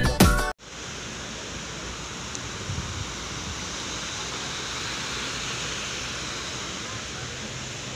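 Background music cuts off about half a second in, followed by a steady rushing noise of flowing river water.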